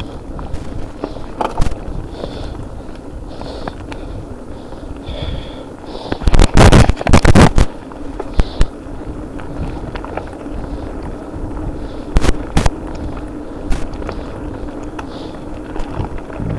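Mountain bike being ridden over rough ground: steady rolling and drivetrain noise, with loud clattering knocks as the bike jolts, a dense run of them about six to seven and a half seconds in and two more around twelve seconds.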